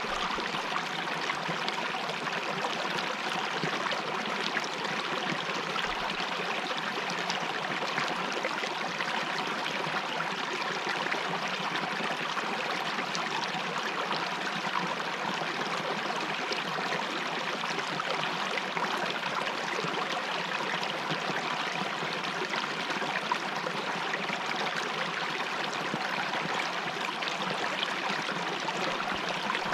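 Mountain river flowing over rocks, a steady, even rush of running water.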